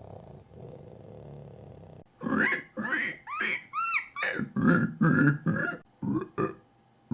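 A man imitating animals with his voice: a faint, steady purr of a cat, then from about two seconds in a run of loud pig grunts and squeals, and near the end a few short toad croaks.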